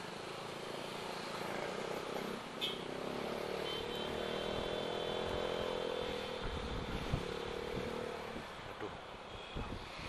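Honda Vario 110 scooter's single-cylinder engine running while riding in traffic, its note swelling and gently rising and falling through the middle. A few low thumps come near the end.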